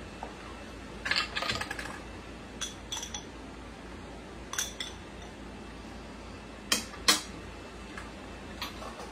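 A metal spoon clinking against a small glass jar and a plate while a topping is scooped onto toast: a rattle of quick clinks about a second in, a few scattered single clinks, and the two sharpest, loudest clinks about seven seconds in.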